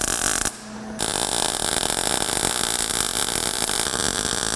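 MIG welder arc crackling steadily as it lays a bead joining a steel exhaust pipe to its flange, with the shielding gas turned on. The arc stops about half a second in and strikes again about a second in.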